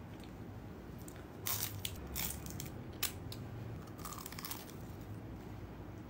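Biting and chewing a crispy fried spring roll: a few short crunches through the middle, the sharpest about three seconds in.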